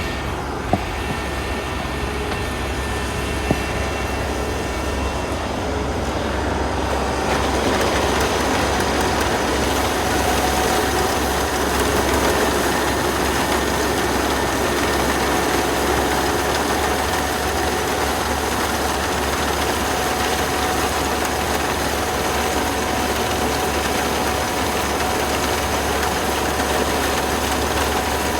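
Rice combine harvester running steadily, its engine and machinery making a continuous drone. About seven seconds in, the sound grows fuller and a little louder, and then it holds steady.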